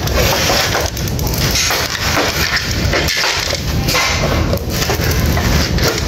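Irregular scraping, cracking and knocking of a UPS's plastic casing and tools as the case is worked open.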